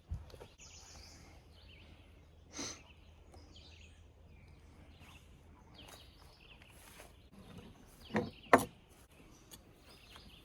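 Quiet outdoor ambience with faint bird chirps, broken by a few short handling knocks: one about two and a half seconds in, and two sharp ones in quick succession near the end.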